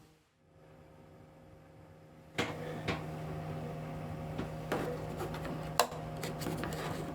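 Hitachi WK-10BH bathroom ventilation fan's motor running with a steady hum, on its newly replaced bearing. About two and a half seconds in it gets suddenly louder with a click, and a few sharp clicks or knocks sound over the hum.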